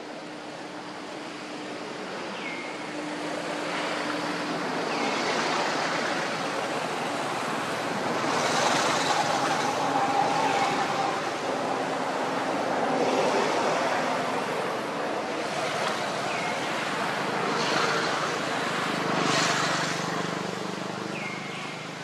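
Outdoor background noise: a rushing sound that swells and fades in slow waves, with a few short high chirps scattered through it.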